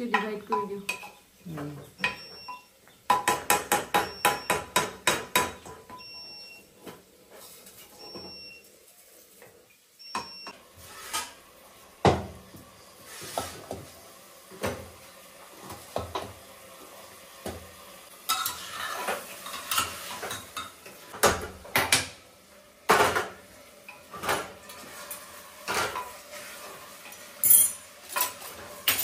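Metal ladle stirring and scraping inside a pressure cooker, with a fast run of about five clinks a second a few seconds in, followed by scattered clanks and knocks of steel bowls and utensils.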